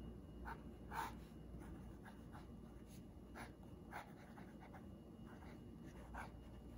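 Broad nib of a Pelikan M200 fountain pen moving over notebook paper as a word is handwritten: a series of faint, short scratches from the pen strokes, the strongest about a second in.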